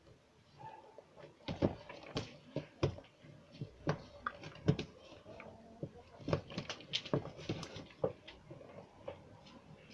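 Slime being squeezed and stretched by hand, giving an irregular run of wet clicks and pops.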